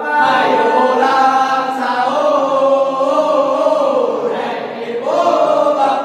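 A group of young men's voices chanting together in unison, a sahur wake-up chant sung to rouse people for the pre-dawn Ramadan meal. One long held phrase, then a new phrase starts about five seconds in.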